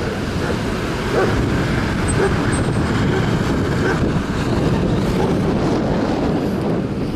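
Road traffic: cars driving past through an intersection, over a steady low rumble.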